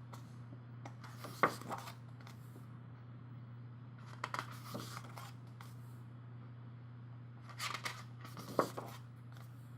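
Pages of an album photo book turned by hand: three short papery rustles, each with a sharp flick, over a steady low hum.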